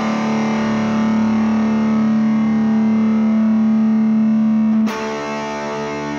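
Distorted electric guitar music: one chord held and ringing out, then a new chord struck about five seconds in and held.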